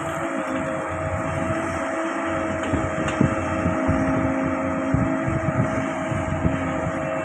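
Hydraulic excavator's diesel engine running steadily under load, with a constant hydraulic whine and several short knocks of the machine working.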